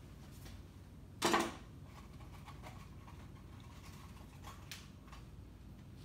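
Quiet handling sounds as hair is pinned into an up-do by hand: one short, louder rustle about a second in, then a few faint ticks, over a low steady room hum.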